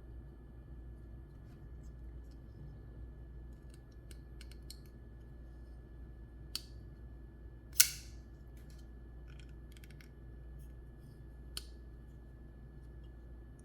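Matsey Basilisk folding knife with titanium frame-lock handle being worked by hand: faint ticks and a few sharp metallic clicks of its blade action, the loudest about eight seconds in with a brief ring.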